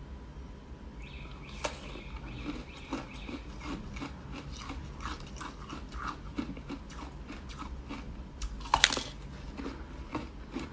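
Ice being bitten and chewed close to the microphone: a rapid run of short crisp crunches, with one louder crack near the end.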